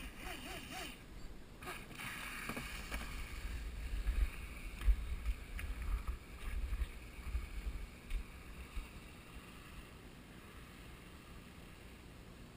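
Radio-controlled jet boat with a 540-size electric motor running on the water, its whine fading over the first eight seconds or so. Gusts of wind rumble on the microphone.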